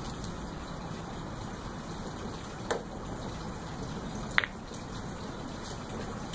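Pool cue tip striking the cue ball about two and a half seconds in, then a sharper, louder clack of the cue ball hitting an object ball nearly two seconds later, over a steady background hiss.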